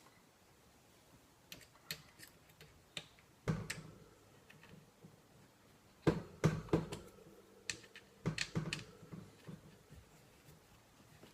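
Handling clicks and knocks from the parts of a Blackhawk Knoxx SpecOps Gen II collapsible shotgun stock being fitted back together: a few light clicks at first, then heavier knocks in clusters about a third of the way in, past the middle and again a little later.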